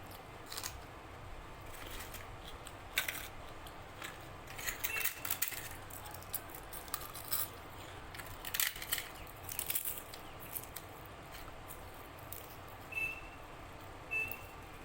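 Close-up eating sounds: wet chewing and lip smacking in irregular clusters of short clicks, with a couple of brief high squeaks near the end.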